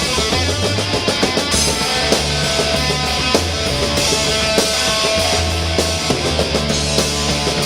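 Loud, heavy rock music: electric guitar over a sustained bass line, with drums keeping a steady beat.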